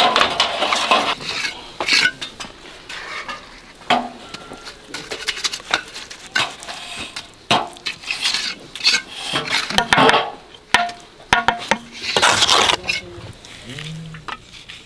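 Masons' steel trowels scraping through mortar and knocking against a metal mortar pan and bricks, in irregular strokes with sharp clinks.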